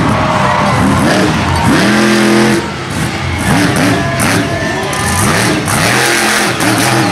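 Monster truck engine revving hard on and off, its pitch climbing and falling over and over, with one longer held rev about two seconds in.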